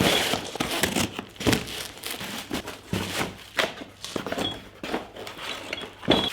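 Parcel packaging crinkling, rustling and tearing as it is unwrapped by hand, with a sharp knock near the end.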